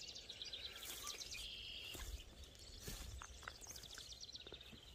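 Faint bird chirps and trills in a field, over a low outdoor rumble, with a few soft clicks.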